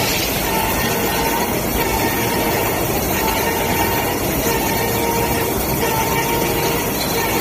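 CNC grinding and deburring machine running, a steady mechanical noise with a faint whine.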